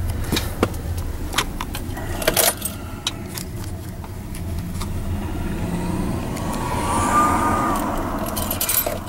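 Car keys jangling, with several sharp clicks and knocks in the first two and a half seconds and more near the end. The engine is off.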